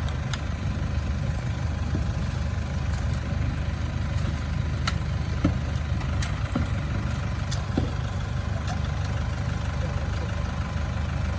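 4x4 truck engine idling steadily, with a few faint clicks over the low hum.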